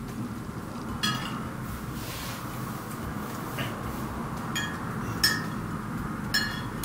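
Eating utensils clinking against a bowl of noodle soup four times, each clink ringing briefly, over a steady low background hum.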